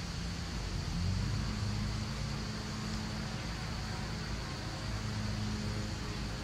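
A steady low mechanical drone over an even hiss; its pitch steps up slightly about a second in and then holds.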